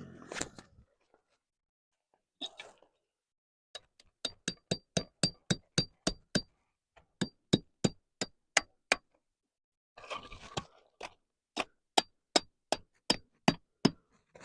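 Two runs of quick, sharp metallic strikes, about three or four a second, each with a brief ring; the first run starts about four seconds in and the second about ten seconds in.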